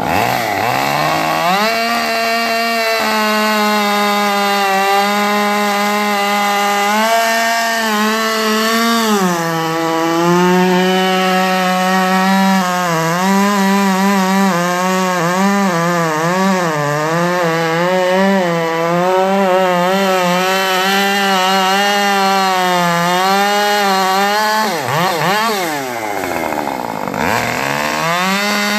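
Husqvarna 550 XP two-stroke chainsaw with a modified muffler, run at high revs while it cuts through a large log. Its pitch wavers as the chain loads in the cut, and twice, right at the start and about 25 seconds in, the revs drop away and climb back up.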